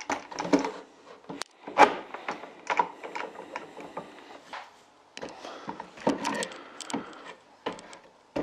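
Metal bar clamp being set across a wooden drawer box and tightened: an irregular run of clicks and knocks from the clamp's bar and heads against the wood, with a denser cluster about five to six seconds in.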